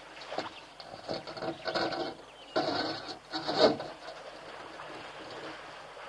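Elephants wading through a shallow, weed-covered waterhole, the water splashing and sloshing in irregular bursts, loudest about three and a half seconds in.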